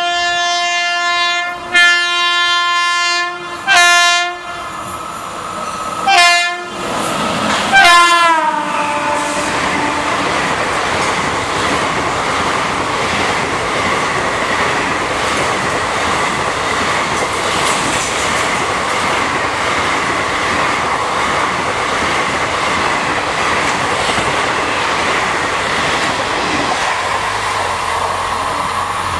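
Indian Railways WAP-5 electric locomotive's horn sounding a series of blasts, the last one dropping in pitch as the locomotive passes. Then a long steady rush and clatter of the coaches going by at speed.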